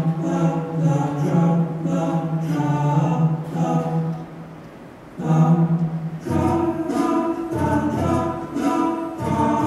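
Vocal music with a choral, a cappella sound: voices holding long notes over a steady low tone. It drops away briefly near the middle, then comes back fuller, with a low, rhythmic accompaniment entering.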